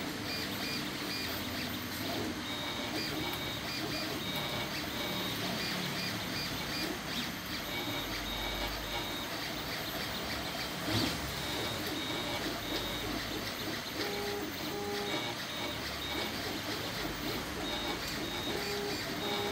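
FDM 3D printer running a print: its stepper motors sing in short tones that switch on and off and change pitch with each move, over the steady whoosh of the radial part-cooling blower fan. One brief knock comes about halfway through.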